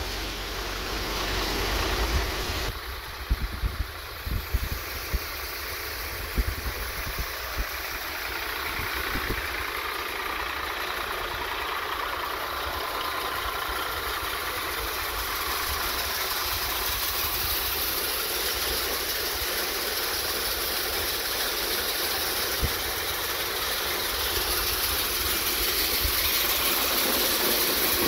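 Swaraj 742 FE tractor's three-cylinder diesel running steadily under load, driving an NJT multicrop thresher as it threshes chickpeas; the drone and the thresher's whir grow slowly louder toward the end. A few low thumps in the first third.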